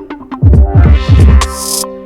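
Electronic instrumental beat: a run of deep bass hits, each dropping in pitch, with a short burst of high hiss near the end.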